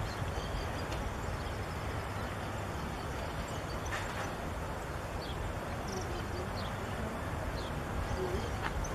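Steady outdoor background rumble with a few faint, short high chirps scattered through it.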